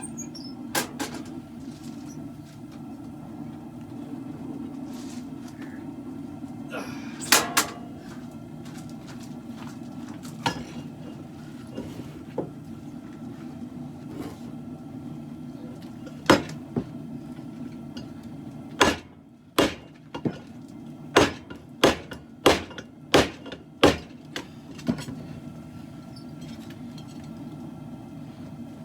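Hand hammer striking steel on an anvil while forging a khopesh blade: a few scattered blows, then a run of about eight blows a little over half a second apart in the second half, over a steady low hum.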